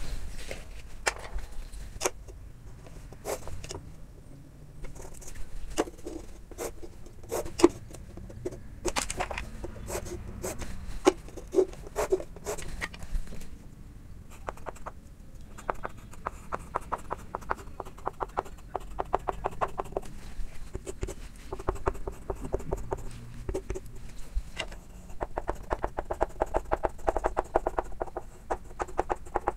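Chalk tapping and scratching on a chalkboard as block-capital lettering is written: irregular sharp clicks, coming in quick runs of ticks in the second half.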